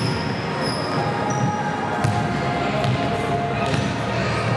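A basketball bouncing on a gym court over a steady din of play and spectators, with a few short high squeaks and a sharp thump about two seconds in.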